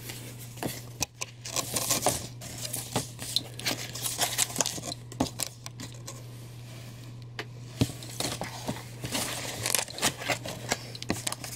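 Corrugated cardboard being folded and creased by hand: irregular scraping, rubbing and soft taps as the box flaps are bent and pushed into place, with a quieter stretch a little past halfway.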